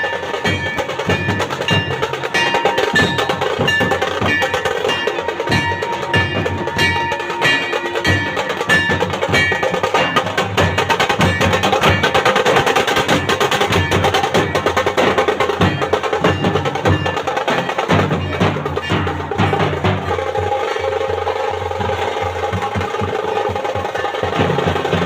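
Dhol drums beating a fast, dense rhythm, with a shehnai playing a melody over them.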